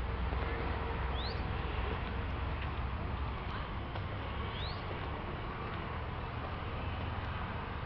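Steady outdoor rumble and hiss, heaviest in the low end, with two short rising bird chirps, about a second in and again about four and a half seconds in.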